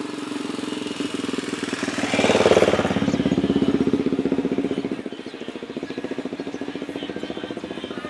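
Ferry's diesel engine idling at the landing with a steady rapid throb. About two seconds in, a car's engine rises over it for a second or so as the car drives off the ramp; after that the throb goes on a little quieter.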